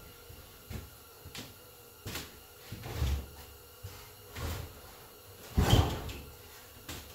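Irregular knocks and bumps as a lawnmower body panel is handled and shifted on its paint stand, the loudest about three-quarters of the way through.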